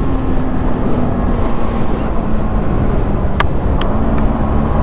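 Yamaha MT-15's single-cylinder engine and wind rush heard from the riding position as the bike slows and is shifted down from fourth to third gear; the engine note drifts lower. Two sharp clicks come about three and a half seconds in.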